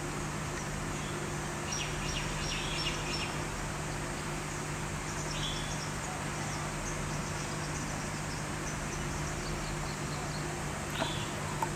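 Steady background hiss with a constant low hum, broken by a few short high chirps about two seconds in, about five seconds in and near the end.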